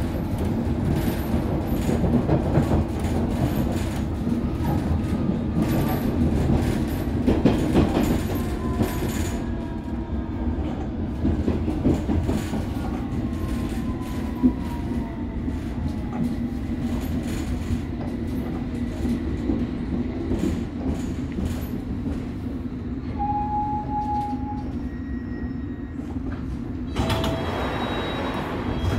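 London Underground District line train running between stations, heard from inside the carriage: a steady rumble with wheels clattering over rail joints in the first third. Faint wheel squeal comes in mid-way and again near the end.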